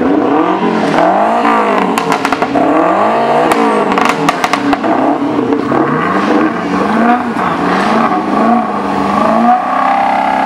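High-performance car engines revved over and over, each blip rising and falling in pitch every second or two. Quick strings of sharp exhaust pops and crackles come about two seconds in and again around four seconds in.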